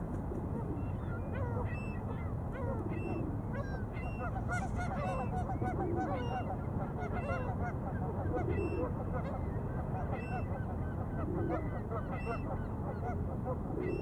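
A flock of geese honking, many short calls overlapping one another without a break, over a steady low rumble.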